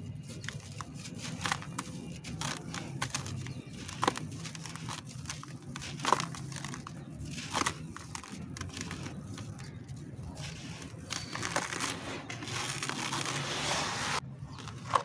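Dry, dusty concrete lumps crumbling and crunching under the fingers, with grit crackling and several sharper snaps as pieces break off. About twelve seconds in the grit rushes more densely for a couple of seconds before stopping abruptly.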